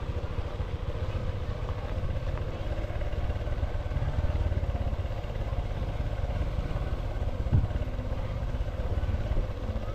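Honda Super Cub C125's single-cylinder engine running steadily on the move, under a heavy choppy low rumble of wind on the microphone. A brief thump about seven and a half seconds in.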